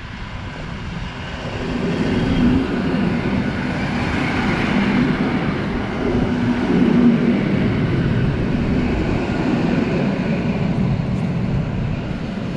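Koleje Śląskie EN57AKŚ electric multiple unit passing along a station platform and moving away: a rumble of wheels on rail with a low electric hum. It swells about a second and a half in, stays loud through the middle and starts to fade near the end.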